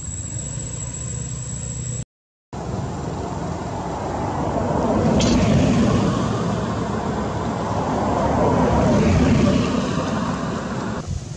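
A steady high insect buzz, cut off by an edit about two seconds in. Then the rumble of road vehicles passing, swelling and fading twice.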